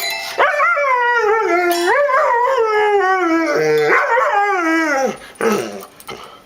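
A dog howling: one long, wavering howl of about five seconds that slides down in pitch at the end, followed by a brief second call.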